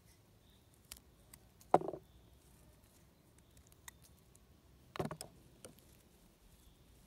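Chanterelle mushrooms dropped into a clear plastic box, knocking on the plastic: two louder knocks, one a little under two seconds in and one about five seconds in, with a few fainter clicks of handling in between.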